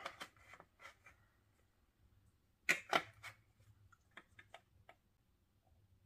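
Scattered clicks and taps of hands pressing on and handling a plastic Godzilla-figure humidifier. There are two louder clicks a little under halfway through, with fainter taps before and after.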